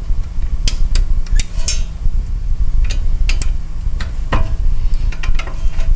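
Irregular metallic clinks and taps of a steel spanner on the upper ball joint nut and knuckle of a Toyota LandCruiser 200's front suspension as the nut is loosened, over a steady low rumble.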